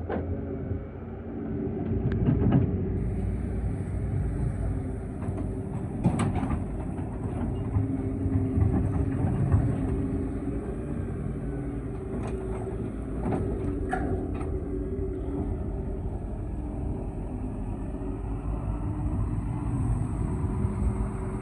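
Excavator's diesel engine running steadily under load, with several sharp knocks and clanks scattered through it.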